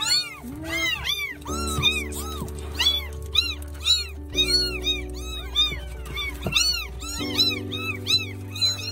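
Several newborn kittens meowing loudly over and over, their short high cries rising and falling and overlapping one another. Soft background music with sustained chords plays underneath.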